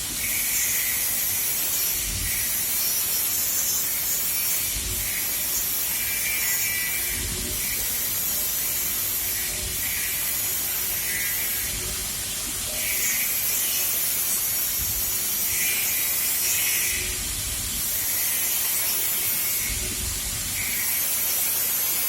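Welding hissing and crackling steadily, swelling about every two and a half seconds.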